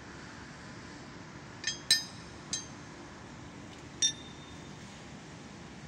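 Steel brackets clinking against one another as they are handled: three quick clinks about two seconds in, then one more near four seconds that rings on briefly with a metallic tone.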